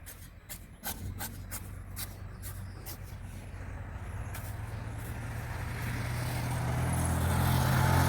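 A motor vehicle's engine growing steadily louder as it draws closer or speeds up, with a run of sharp clicks in the first few seconds.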